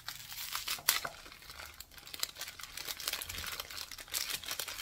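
A small instant-udon garnish sachet being torn open and crinkled in the hands: a run of dry crackles, with a sharper snap about a second in.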